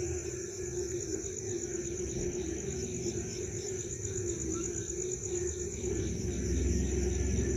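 Night chorus after rain: crickets trilling in a continuous high, rapidly pulsing drone, over a lower steady chorus of frogs. A low rumble grows near the end.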